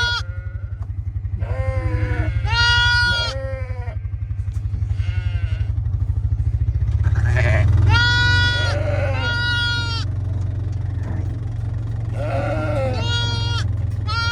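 Sheep bleating: a string of short, high calls, ewes and lambs answering each other, over a steady low hum.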